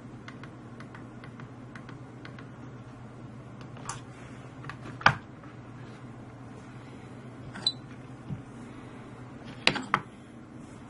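A scatter of small clicks and taps, first a run of faint ticks and then a few sharper single clicks, the loudest about halfway through and a close pair near the end, over a steady low hum.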